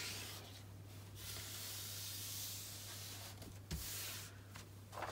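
Soft hissing rustle of hands handling the plastic release film on a glue-coated diamond painting canvas, lasting a couple of seconds, with a light knock near the end. A steady low hum runs underneath.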